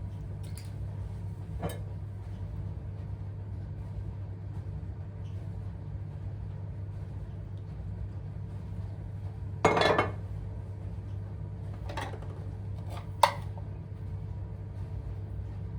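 Scattered clinks and knocks of dishes and cutlery being handled, the loudest a short clatter about ten seconds in and a sharp clink about three seconds later, over a steady low hum.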